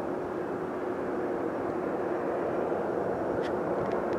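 Boeing 737 MAX 8's CFM LEAP-1B turbofan engines at low landing thrust as the jet flares just above the runway: a steady rushing jet noise with a held hum that fades about three seconds in. A few faint clicks come near the end.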